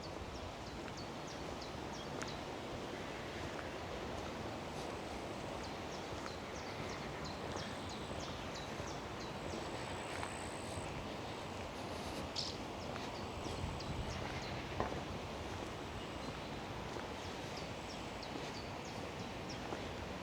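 Outdoor ambience: a steady rustling haze with birds chirping, many short high notes repeated throughout. There is a single sharp click about three quarters of the way through.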